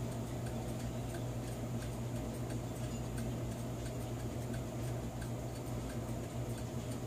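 Sessions electric clock running after a phenolic gear replacement: its motor gives a steady low hum, with light, regular ticking from the gear train.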